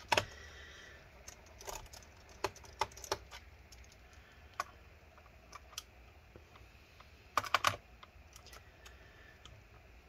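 Faint, scattered clicks and taps of a screwdriver working screws out of a laptop's plastic bottom case, with a quick cluster of louder clicks about seven and a half seconds in.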